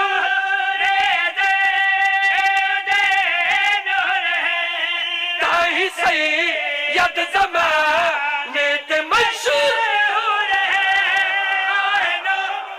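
Men's voices chanting a Punjabi qaseeda, a devotional praise poem, in long held notes that waver and glide, with short breaks between phrases about halfway through.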